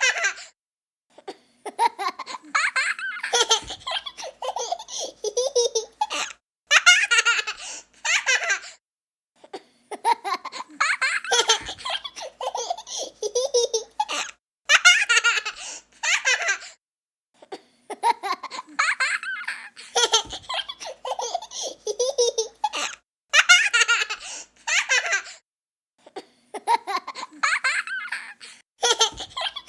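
A young child laughing in repeated fits of high giggling and belly laughs, each a second or two long, with brief silent gaps between them.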